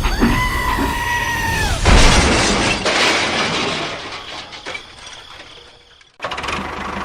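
A steady whistle-like tone held for under two seconds, then a loud crash about two seconds in that slowly fades away before the sound cuts off abruptly.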